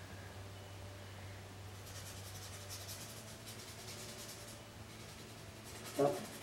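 Faint scratchy rubbing of a paintbrush dry-brushing acrylic paint onto a wood panel in quick repeated strokes.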